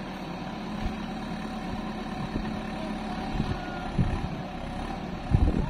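Diesel engine of a JCB 3DX backhoe loader running steadily while it works its backhoe arm, with a few low thumps, the loudest about five seconds in.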